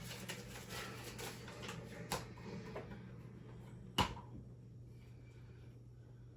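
Light rustling and handling sounds, then a click about two seconds in and a single sharp knock about four seconds in, over a steady low hum.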